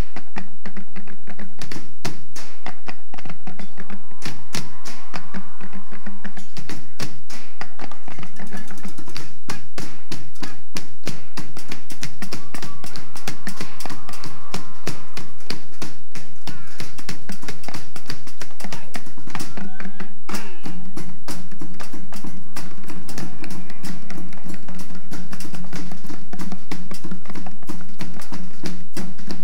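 Junk-percussion ensemble playing a fast rhythm, striking plastic traffic cones, plastic barrels and metal pots with wooden sticks. A low steady drone sounds under the beating at times, most of all in the second half.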